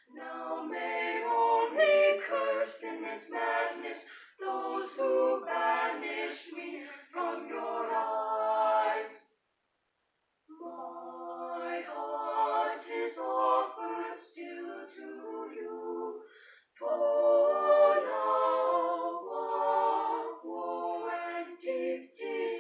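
Small mixed-voice ensemble of six singing a cappella in parts, with a silent break of about a second about halfway through before the next phrase.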